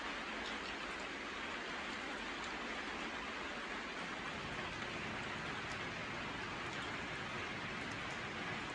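Steady rain falling, an even hiss with faint scattered ticks of individual drops.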